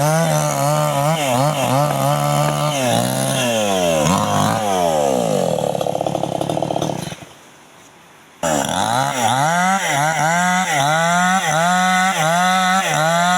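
Small chainsaw cutting young teak, its engine pitch rising and falling about twice a second as it bogs under load in the cut. About four seconds in the revs slide down, the sound drops out for about a second, then the saw runs and cuts again.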